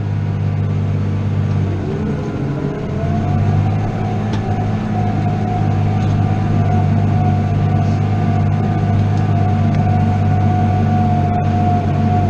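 New Holland T7 210 tractor's six-cylinder diesel heard from inside the cab, running steadily while pulling a five-furrow plough. A steady whine sits over the low drone, rising slightly and settling about three seconds in.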